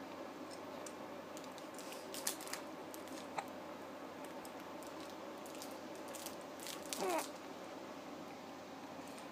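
Faint wet chewing and mouthing sounds with a few small clicks over a steady low hum, and a brief squeaky mouth sound about seven seconds in.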